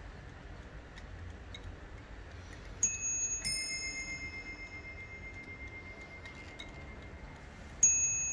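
Warmink 8-day mantel clock striking on its two bells: a higher note, then a lower one half a second later, ding-dong, each left ringing. The pair sounds twice, about three seconds in and again near the end, over the movement's faint ticking.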